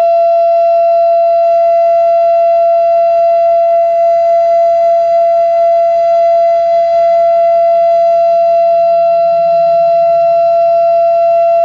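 Federal Signal Thunderbeam outdoor warning siren, turned by an RSH-10 rotator and fitted with a broken reflector disc, sounding a loud steady alert tone. The pitch holds level, with no rise or fall.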